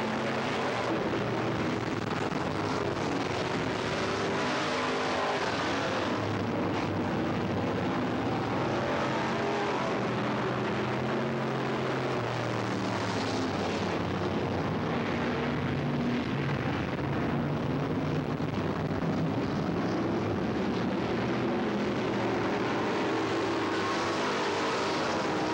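Engines of several dirt-track stock cars running at speed as they lap the oval: a continuous loud drone whose pitch shifts as the cars come past.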